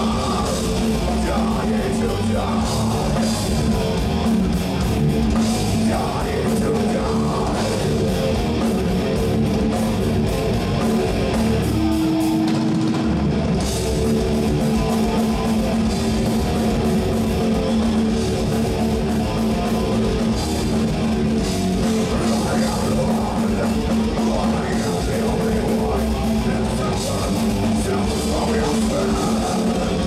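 Metal band playing live: distorted electric guitars, bass and drum kit, loud throughout. About twelve seconds in the drums and bass drop out for a second or so under one held note, then the full band comes back in.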